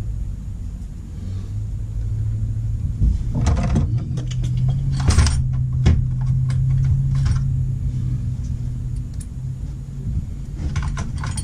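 Metal tools and fork parts clicking and clinking in short bursts while the bottom screw of a Harley fork is fitted with an Allen key, over a low steady hum.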